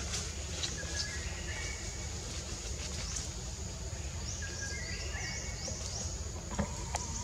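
Tropical forest ambience: a bird calls twice in short stepped whistled phrases, about four seconds apart, over a steady high insect drone and a low rumble. A couple of faint clicks come near the end.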